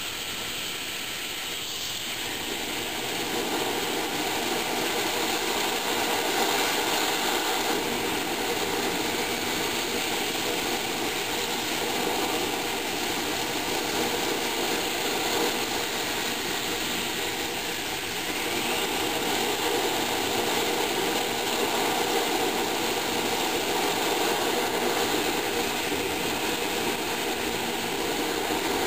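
A Hago siphon-nozzle oil burner firing on the bench. Compressed air atomises the oil and the flame burns with a steady rushing noise. It grows louder a few seconds in and dips briefly about two-thirds of the way through.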